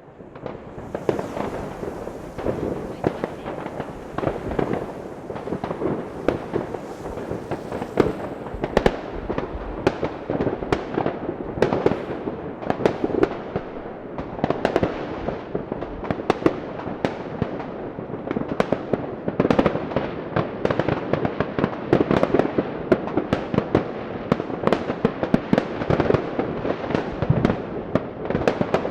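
Many fireworks and firecrackers going off at once: a continuous barrage of overlapping bangs, pops and crackles with no let-up, starting about half a second in.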